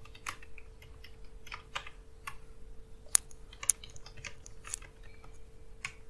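Typing on a computer keyboard: irregular keystrokes, with a few sharper, louder strokes among them.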